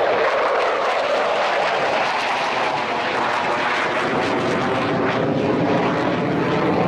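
Jet noise from a Chengdu J-10 fighter's single turbofan engine as it climbs vertically and passes overhead, a loud steady rush.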